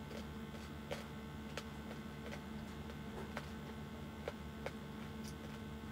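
Close-up eating sounds: a series of short, sharp mouth clicks and smacks from chewing, about one every half second to second. Under them runs a steady hum from a room air conditioner.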